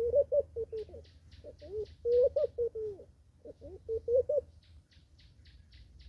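Laughing dove cooing: repeated bubbling phrases of low notes that rise and fall, stopping about four and a half seconds in. A smaller bird gives a fast run of short high notes twice, about a second in and near the end.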